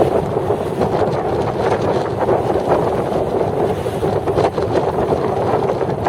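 Strong wind blowing over a rough sea and buffeting the microphone: a loud, continuous rushing rumble that swells and dips in gusts.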